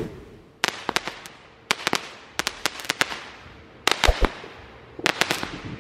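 Consumer fireworks going off: irregular sharp cracks and pops in small clusters, with two deeper thumps about four seconds in.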